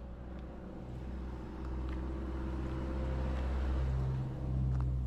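A motor vehicle's engine running close by, a steady low hum that grows louder over the first few seconds.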